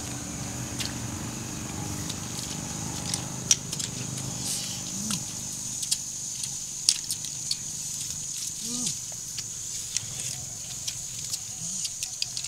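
Scattered small clicks and taps, with a few short low hums from a person's voice, over a steady high-pitched buzz.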